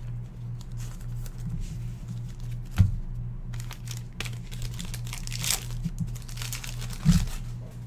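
Trading-card pack foil and cards being handled: crinkling and rustling of the wrappers, with light clicks and two sharper knocks against the table, about three seconds in and again near the end, over a steady low hum.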